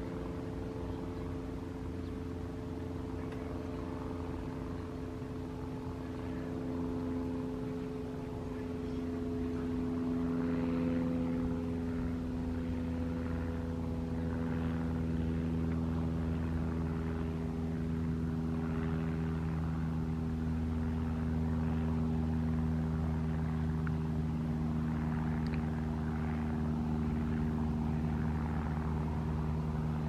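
A steady engine drone with an even, unbroken hum, growing a little louder about ten seconds in.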